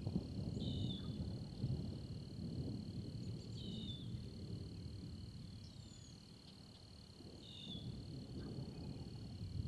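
Outdoor storm-time ambience: a steady high insect trill, a bird calling in short chirps three or four times, and an uneven low rumble underneath that fades about two-thirds of the way through and swells again near the end.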